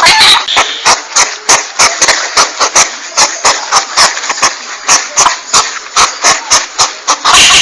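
Porcupine sounds: a fast, even train of sharp clicks, about four a second, with hissing between them.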